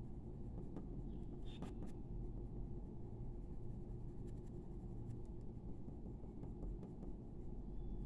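Coloured pencil scratching and rubbing on paper as fur is shaded in, over a steady low hum, with a couple of faint clicks about a second and a half in.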